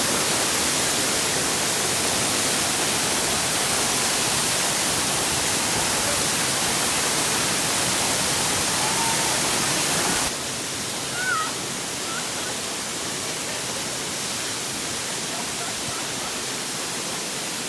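Rushing water of a waterfall: a steady, even hiss that drops abruptly in level about ten seconds in. A brief chirp comes about a second after the drop.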